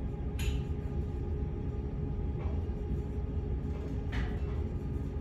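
A cable machine during tricep press-downs: a short swishing rattle from the cable and weight stack with each rep, about every two seconds, four times, over a steady low hum.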